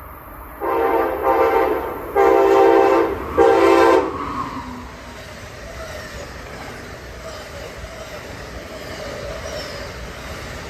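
Amtrak train's Nathan K5LA five-chime air horn sounding three blasts, the last one short, then the train's steady rolling noise as it passes.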